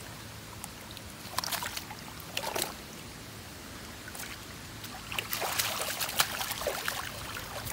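Water sloshing and splashing as a mesh keepnet holding fish is moved about in the shallows, over a steady rushing noise. There are a few short splashes, then a busier stretch of splashing past the middle.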